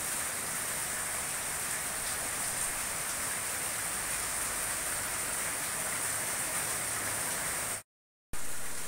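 Heavy rain pouring onto a flooded paved yard, a steady even hiss. The sound drops out completely for about half a second near the end.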